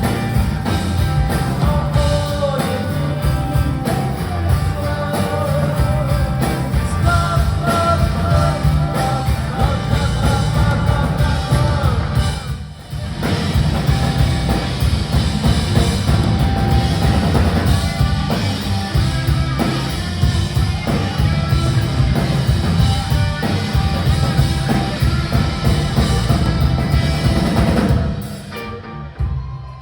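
Live rock band playing with a full drum kit, bass and guitars, with a brief break about twelve seconds in. The music drops away near the end.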